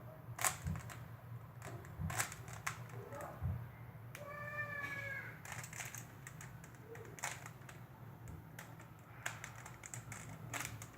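Rubik's cube being turned by hand: irregular runs of quick plastic clicks as its layers are twisted. About four seconds in there is also a short pitched sound lasting about a second.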